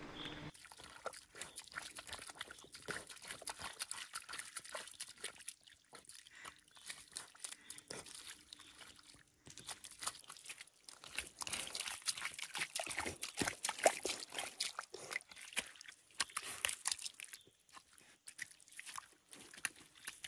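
A small dog digging with its front paws in wet mud at the edge of a puddle: rapid, irregular scraping, squelching and splashing of mud and water, with a short lull a little before halfway.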